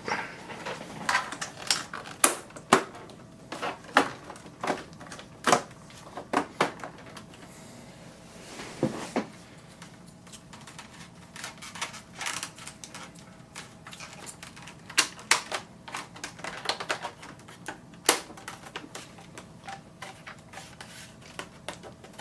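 Irregular clicks, taps and knocks of hard objects being handled on a workbench, with a short scrape about nine seconds in.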